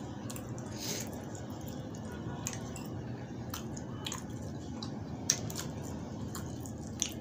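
Wet squishing of flatbread being torn and mashed into egg and curry by hand on a plate, with scattered sharp clicks, the loudest about five seconds in.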